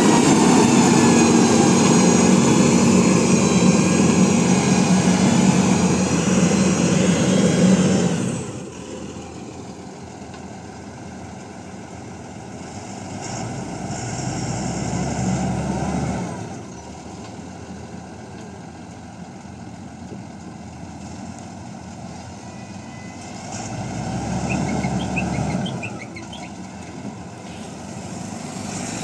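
ACE motor grader's diesel engine running, loud and close with a steady hum for about the first eight seconds, then suddenly much quieter and more distant, swelling twice as the machine works the road.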